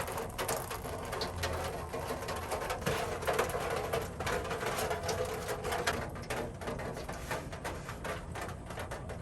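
Gasoline draining out of a Mercedes-Benz 300CE's fuel tank outlet, trickling and gurgling into a container, with a steady run of small splashes.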